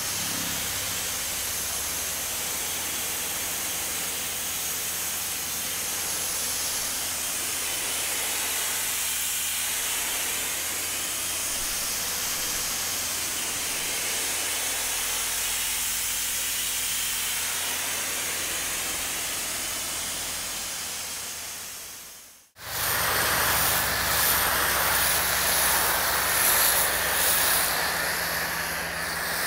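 Kranzle K1322TS electric pressure washer spraying a wide fan of water from its gun onto a vehicle panel: a steady hiss of water spray. After a sudden cut about 22 seconds in, a foam cannon on the same washer sprays foam, a louder hiss with a steady hum under it.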